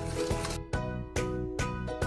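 Background music: a light tune with a new note about every half second.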